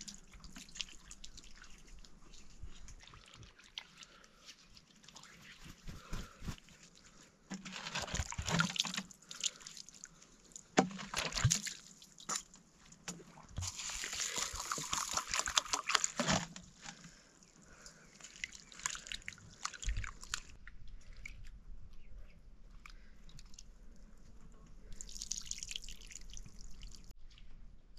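Water splashing and dripping in several spells of one to three seconds each, with a few sharp knocks in between.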